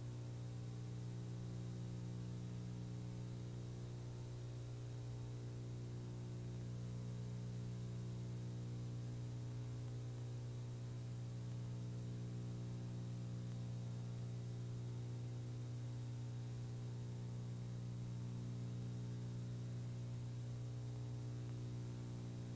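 A steady low electrical hum, like mains hum, with a faint even hiss behind it and no music or voice.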